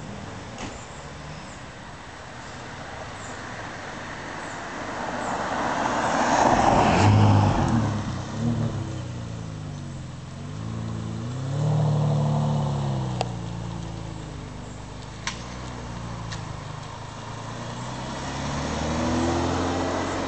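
Ferrari 612 Scaglietti's V12 engine as the car drives up and passes close by about seven seconds in. Its note then falls and rises through several rev changes as it turns. Near the end it accelerates past again with a rising note.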